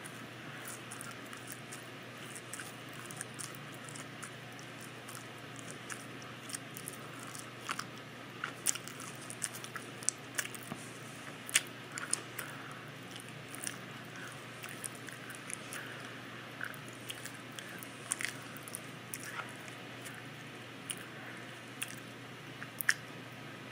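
Open-mouthed chewing of a soft carrot cake cupcake with cream cheese frosting, close to the microphone: irregular mouth clicks and smacks over a steady hiss.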